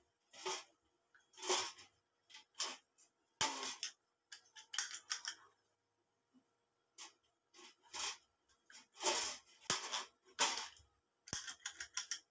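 Hand tools clicking and scraping against the sheet-metal body of a home-built waste-oil stove, pliers among them, in short irregular bursts with a few sharp clicks.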